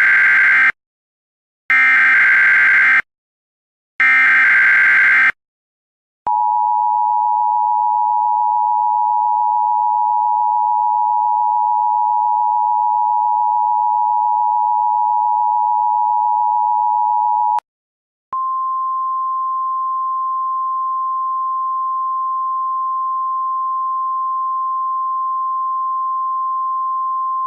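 Emergency Alert System test signals. It opens with three short bursts of the SAME header's buzzing digital data. Then the two-tone EAS attention signal holds steady for about eleven seconds, and after a brief gap a single steady alert tone, a little higher in pitch, sounds in the style of the weather-radio alert tone.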